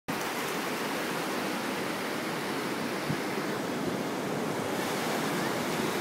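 Atlantic Ocean surf breaking and washing up a sandy beach: a steady rush of water.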